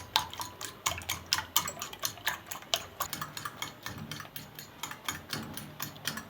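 A fork beating a raw egg on a plate: quick, regular clicks of the fork tines striking the plate, several a second, as the egg is whisked to a froth.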